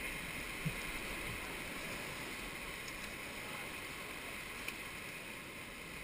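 River whitewater rushing steadily around an inflatable raft, a continuous wash of rapids.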